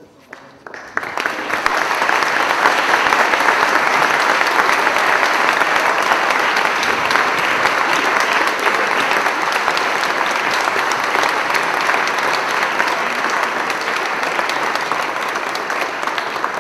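Audience applauding: dense, steady clapping that starts about a second in and eases off slightly toward the end.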